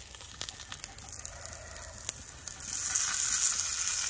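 Burger patties sizzling on a hot cast iron pan, with a scatter of small crackles and pops. About two and a half seconds in the sizzle suddenly gets much louder and hissier.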